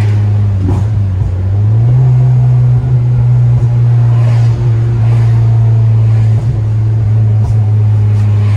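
9th-generation Honda Civic Si's 2.4-litre four-cylinder engine and exhaust droning steadily under way. The engine note steps up slightly about two seconds in, then holds.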